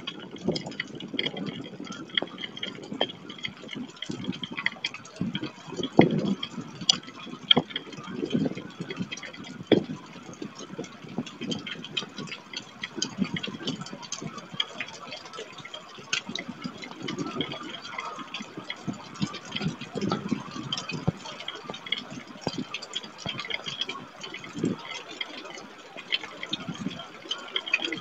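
Storm wind gusting against an outdoor webcam's microphone in irregular low swells, with raindrops hitting it in many sharp ticks.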